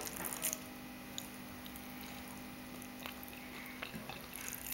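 A young child eating: faint wet mouth sounds and a few small clicks, over a steady low hum.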